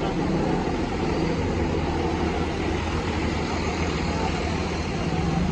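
Bus moving along the road: steady engine and road noise, with a low engine note coming up near the end.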